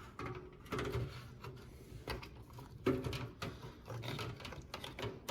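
Scattered light clicks, knocks and rubbing as a motherboard is handled and slid into a PC case.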